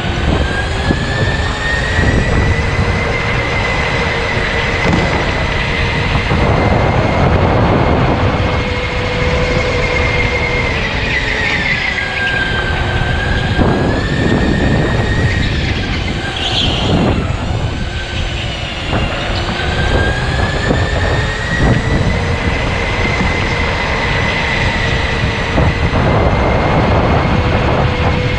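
Electric go-kart's motor whining over steady rumble from the kart, the whine rising as it accelerates and dropping twice as it slows for corners.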